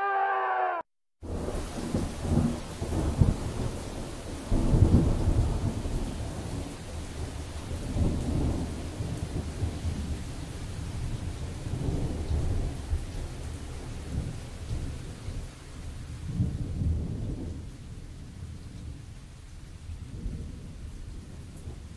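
Thunderstorm: steady rain with rumbles of thunder rolling in again and again, the loudest about five seconds in, growing weaker near the end. It opens with the end of a held, slightly falling tone that breaks off within the first second.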